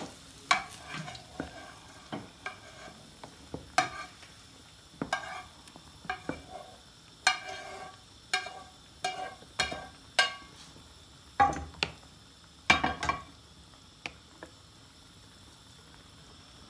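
Wooden spoon stirring a pot of simmering coconut-milk curry, knocking and scraping against the sides of an aluminium stockpot in irregular clacks, about one a second, over a faint simmer. The clacks stop near the end.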